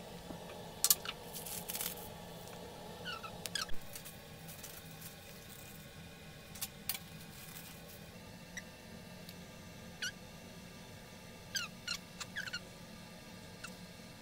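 Piping bag squeezing thick yema custard filling out through its nozzle, giving short high squeaks in small clusters, with a few sharp clicks of plastic handling.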